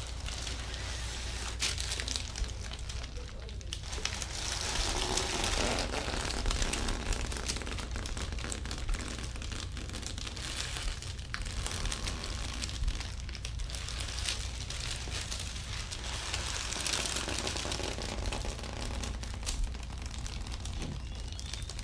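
Hands working over the body during a back massage: a soft, uneven rustling and crinkling of skin, clothing and table cover, with scattered small clicks.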